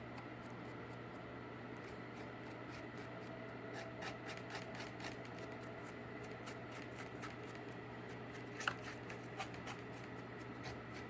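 Paintbrush dry-brushing paint onto cardboard: quick, light, scratchy strokes, with a sharper click about nine seconds in, over a steady low hum.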